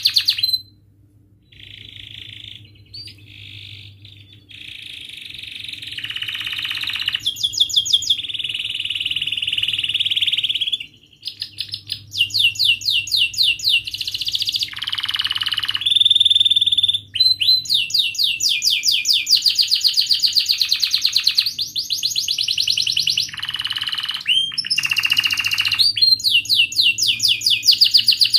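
Domestic canary singing: rolling trills, fast runs of repeated chirps and held whistled notes, in phrases broken by brief pauses.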